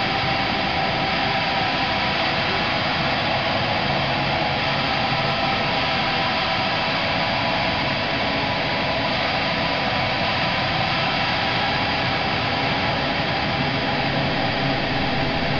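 A steady, unchanging hiss of noise.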